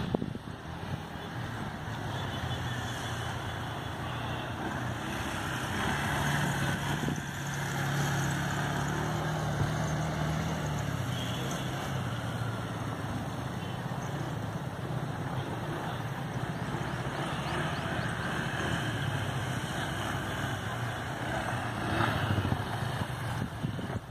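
ATV (quad bike) engine running as it rides along a dirt track. The engine revs higher about six seconds in and drops back about five seconds later.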